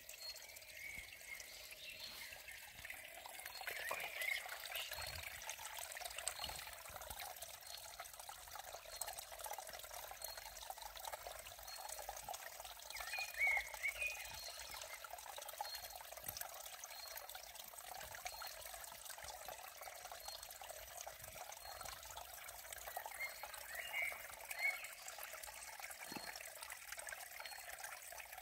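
Shallow water trickling steadily, with a few short high chirps about four seconds in, near the middle and near the end.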